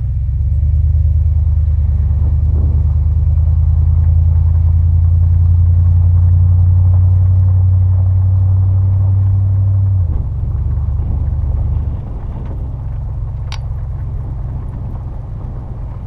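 Toyota Tundra pickup driving downhill, heard from a camera on its roof: a steady low rumble of wind and road noise. The rumble drops in level about ten seconds in and again about two seconds later, and a single sharp tick comes shortly after.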